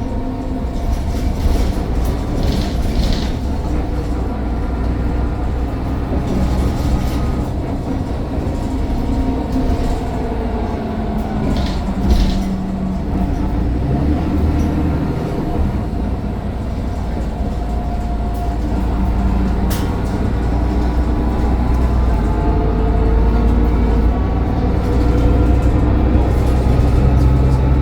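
Mercedes-Benz Citaro city bus heard from on board: the diesel engine running under way with a heavy low rumble, its pitch rising and falling several times as it pulls away and changes gear, with a turbo whine over it. A few brief knocks and rattles sound along the way.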